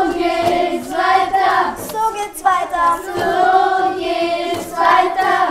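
Children singing together, a tune in sustained notes broken into short phrases.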